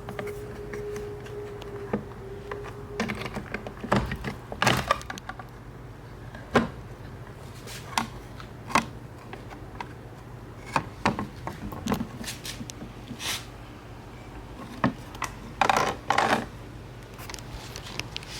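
Irregular clicks, taps and knocks of hand tools and small parts being handled during the work, some coming in quick clusters, over a steady low hum.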